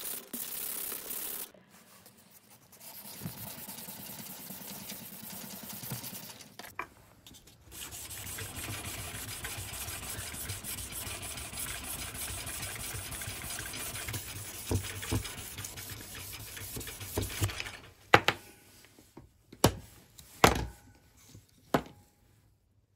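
Steel knife blade being hand-sanded on wet sandpaper, rubbing back and forth in quick strokes with a steady rasp. Near the end, several sharp knocks and clicks as the knife and block are handled.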